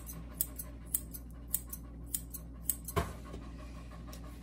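Grooming scissors snipping through a toy poodle puppy's fur, with about ten quick, sharp snips at an uneven pace, followed by a dull knock about three seconds in.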